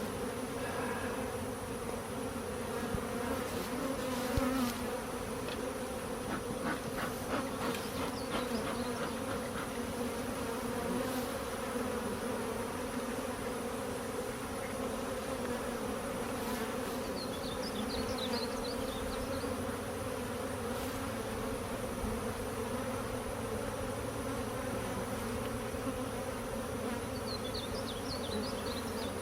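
Honeybees buzzing around an opened, disturbed hive: a steady low hum throughout, with a few light knocks and scrapes from the frames and comb being handled in the first several seconds.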